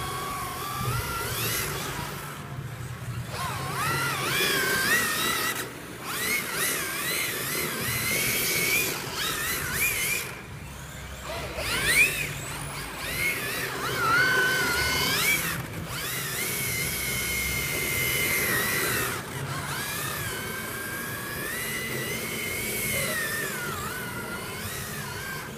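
Electric motors of 1/10-scale MST FXX-D RWD drift cars whining, the pitch rising and falling again and again as the throttle is blipped and held through the drifts.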